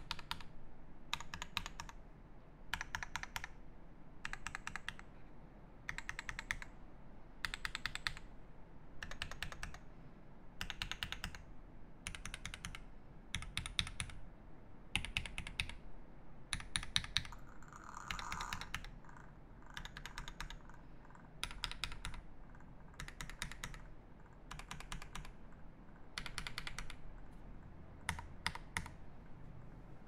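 Typing on a mechanical keyboard with lubed C3 Banana Split linear switches, a PVD brass plate, ePBT keycaps and an acrylic case. The keystrokes come in quick bursts, about one every one and a half seconds.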